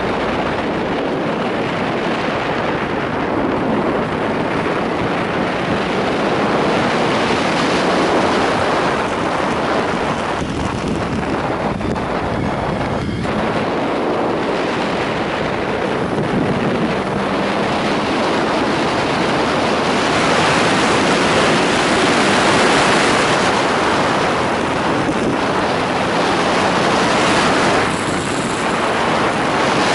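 Wind rushing over the microphone of a motorcycle being ridden, a steady loud roar with the engine faintly underneath.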